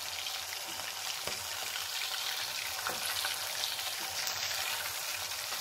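Marinated prawns deep-frying in hot oil in a steel kadai: a steady sizzle, with a few light scrapes and knocks as a slotted ladle turns them.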